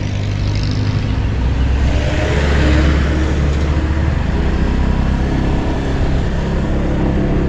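A moving car's engine and road noise: a steady low rumble with a faint engine note that shifts slightly in pitch.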